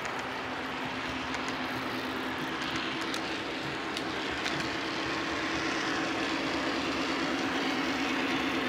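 O gauge model trains running on three-rail track: a double-stack intermodal freight and a passenger train, with a steady rumble and wavering hum of wheels and motors and a few faint clicks over rail joints. It gets a little louder near the end as the stack cars pass close by.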